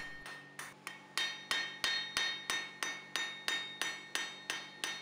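Blacksmith's hand hammer striking a red-hot steel bar on an anvil: a steady rhythm of about three ringing blows a second, starting about half a second in.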